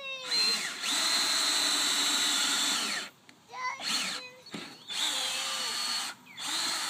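Cordless drill boring through the pages of a thick book. It runs steadily for about two and a half seconds, then in several shorter bursts, its motor whine rising and falling as the trigger is squeezed and let go.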